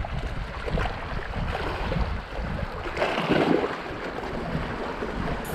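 Small sea waves washing and splashing against barnacle-covered shore rocks, with wind buffeting the microphone.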